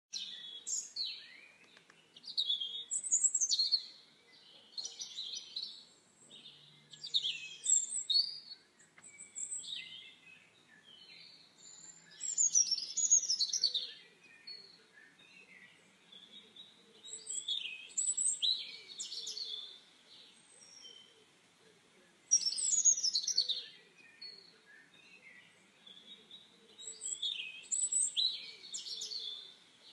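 Small songbirds singing: bursts of quick, high chirps and trills every few seconds.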